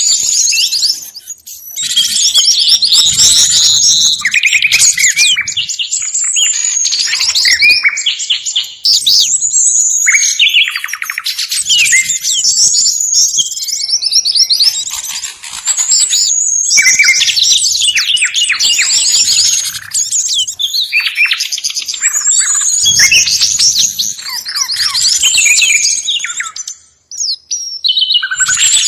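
Many small songbirds chattering and chirping at once, a dense run of rapid high chirps and trills. It is a noisy bird-lure ('ribut pikat') recording, used to draw small forest birds. The chorus drops out briefly about a second in and again shortly before the end.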